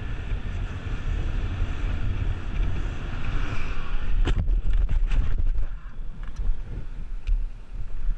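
Wind buffeting the microphone of a camera on a moving motorcycle, a steady rushing noise with heavy low rumble and a few sharp clicks about four to five seconds in.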